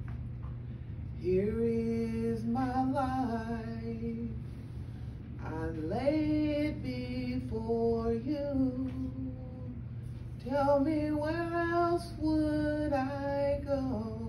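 A woman singing a slow worship hymn solo, in three long phrases with held notes, over a steady low hum.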